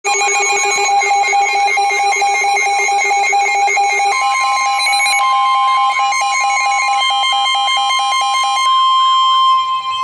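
Several NOAA weather radios sounding their alarms at once for a tornado warning: layered, rapidly pulsing electronic beeps. About four seconds in, a steady high alert tone (the weather radio's 1050 Hz warning tone) joins and holds, and most of the beeping stops shortly before the end.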